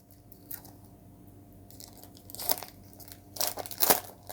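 Baseball card pack wrapper being torn open and crinkled by hand: faint crackles, then louder crackling rustles about two and a half seconds in and again near the end.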